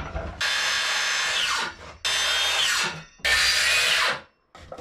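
Cordless circular saw cutting plywood in three short runs of about a second each. The blade's pitch falls off at the end of each run as it spins down.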